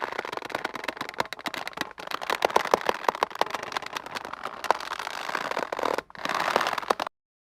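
Taut rope creaking and squeaking under strain: a dense run of rapid crackling creaks with short squeaks. It breaks off briefly about six seconds in, then stops abruptly.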